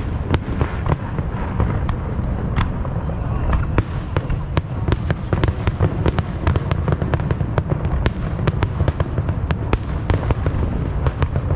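Aerial fireworks going off in quick succession: a continuous low rumble of booms, with many sharp cracks and crackles, often several a second.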